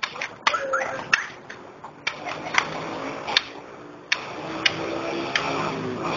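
A quick run of sharp smacks and clacks from a martial arts sparring exchange, about ten hits in six seconds. A steady droning hum builds up underneath in the second half.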